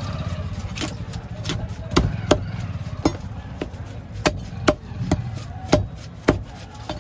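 Long fish knife chopping through small fish on a wooden chopping block: about a dozen sharp thwacks at an uneven pace, roughly two a second, over a low steady rumble.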